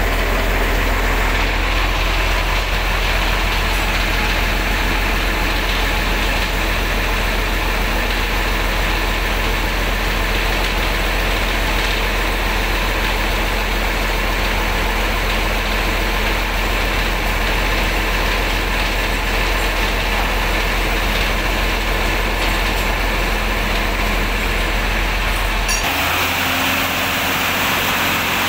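Rear-mounted diesel engine of an intercity bus idling steadily. About 26 seconds in, the sound changes abruptly to a different steady engine idle with a higher hum.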